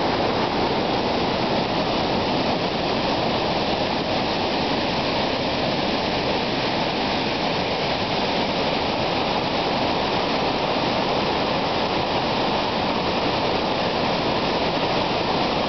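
Waterfall in full flood with storm runoff, the swollen creek pouring over the falls in a steady, loud rush of water.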